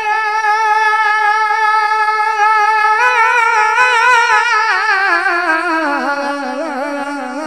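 A single voice sustaining one long sung vowel in a naat recitation: the note is held steady for about three seconds, then wavers with vibrato and slides down, settling on a lower note near the end.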